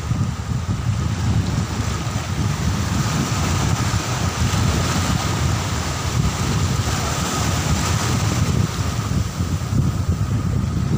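Wind buffeting the microphone in a steady low rumble, with small sea waves washing and breaking in the shallows.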